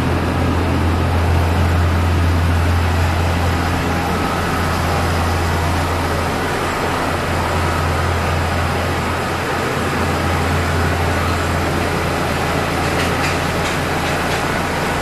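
Steady drone of running machinery: a strong low hum under a broad rushing noise, with a few faint clicks near the end.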